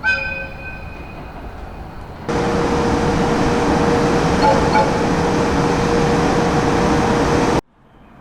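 An EH200 electric locomotive's horn blast dies away, then a sharp cut to the loud rolling noise of the train passing close by, with a steady hum running through it. The noise stops abruptly near the end.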